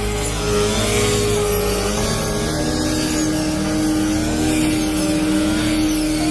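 Rice combine harvester's engine running steadily under work, its pitch wavering a little.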